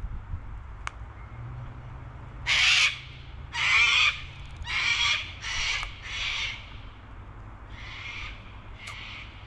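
Wattlebird giving a string of about seven harsh, rasping calls, the loudest two about two and a half and three and a half seconds in, the rest shorter and fainter toward the end.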